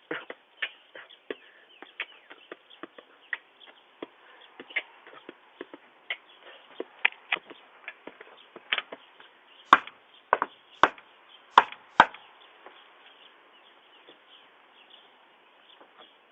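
A door handle and lock being jiggled and rattled, heard through a doorbell camera's microphone as a long run of irregular sharp clicks. Four louder clacks come about ten to twelve seconds in, and the clicks thin out near the end.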